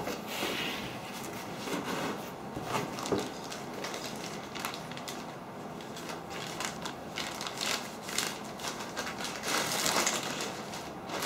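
Cardboard packaging being handled and a plastic bag crinkling as it is pulled off an object, with scattered small knocks; the crinkling is loudest near the end.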